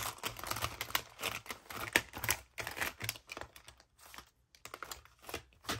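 Colored pencils clicking and knocking against a clear plastic package as they are slotted back into it one by one, with rustling of the plastic. The clicks come thick and fast for the first three seconds or so, then thin out to a few.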